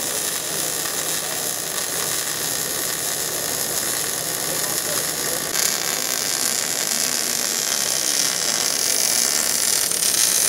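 MIG welding arc from a Millermatic 211 welding roll-cage tubing: a continuous crackling hiss of the wire burning into the joint. It turns brighter and hissier about halfway through.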